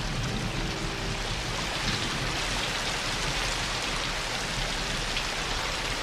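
Steady rain falling on a surface, an even hiss with no breaks.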